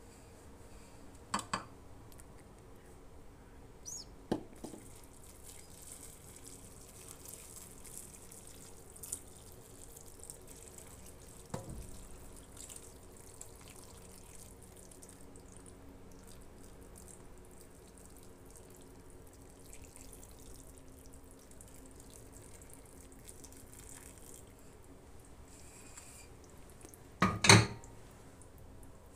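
Broth poured from a steel pot over stuffed cabbage rolls in a cooking pot, a quiet trickle and splash of liquid. A few light clicks along the way, and one loud knock near the end.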